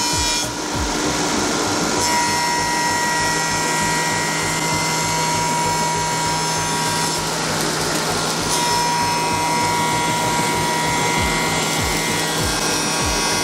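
Woodworking milling machine for door and window frames running, its spinning cutter giving a steady high whine over cutting noise. The whine drops out briefly about half a second in and again for over a second after about seven seconds.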